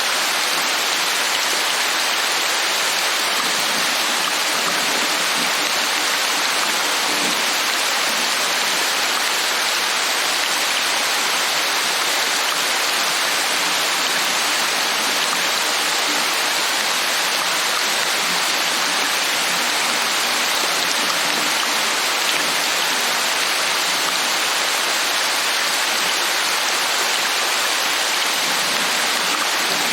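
Steady, heavy rain falling in a continuous even hiss, with no thunder or separate drops standing out.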